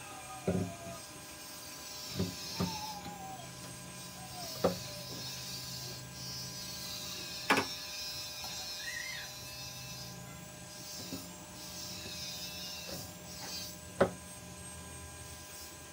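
Pieces of scrap maulawin wood knocked against and set onto a wooden plant stand as shelves are fitted: about six sharp wooden knocks, the loudest about halfway through and near the end, over a low steady hum.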